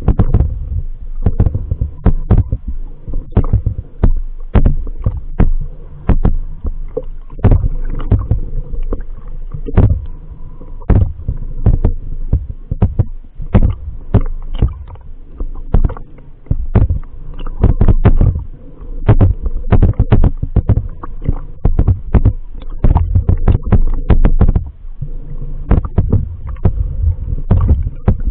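Muffled underwater noise picked up by a camera held below the surface in shallow sea water: a constant low rumble with irregular clicks and knocks, several a second, from water movement and handling of the submerged camera.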